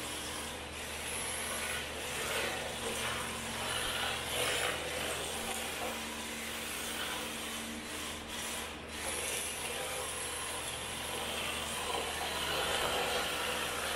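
MST rear-wheel-drive RC drift car circling on concrete: a steady scraping rush of its tyres sliding and scrubbing on the floor, with the car's motor running.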